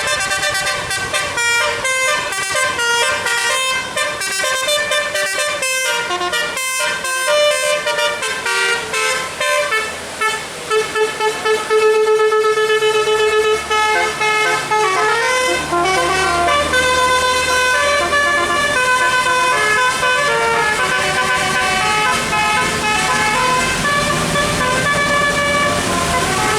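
Bus telolet horn (a Basuri multi-tone musical air horn on roof trumpets) playing a melody: rapid short notes for about the first ten seconds, then longer held notes.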